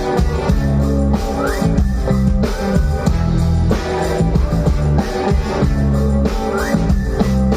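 Live band music, instrumental: steady drums and low bass under a guitar, with a short upward slide in pitch twice.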